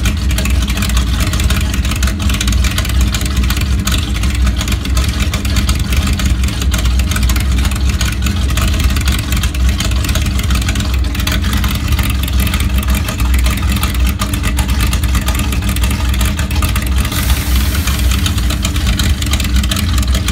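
Chevrolet Impala sedan's engine idling steadily, a low rumble with an uneven pulse.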